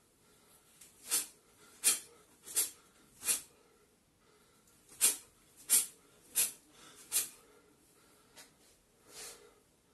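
Short, sharp exhalations with each karate punch, coming about 0.7 s apart in two runs of four, with a fainter one near the end.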